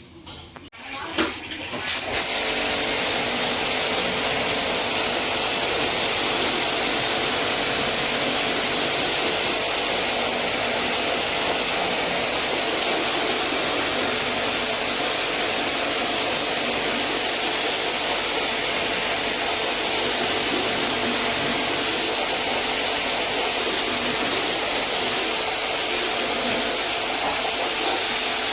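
Pump-driven pressure washer spraying a steady jet of water over an air conditioner during cleaning, starting about two seconds in and stopping right at the end.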